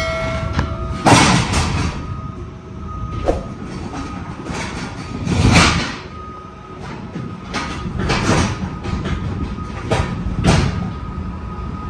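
Heavy iron ring being dragged by straps inside a semi-trailer, giving loud scraping, rumbling surges: one about a second in, one near the middle, and two more near the end, over a steady low rumble.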